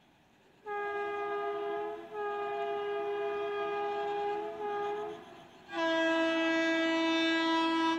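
WAP7 electric locomotive's air horn sounding as the express approaches. A long blast with two brief breaks comes first, then, after about half a second, a second long blast on a lower note that stops near the end.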